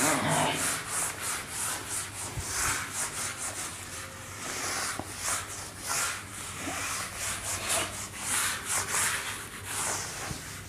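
A handheld eraser wiping marker writing off a whiteboard in quick back-and-forth rubbing strokes, a couple of strokes a second.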